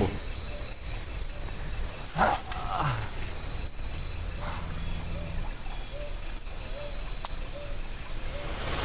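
Wild outdoor ambience under a low steady drone. There is one brief falling call about two seconds in, then from the middle onward short chirping animal calls, repeated about twice a second.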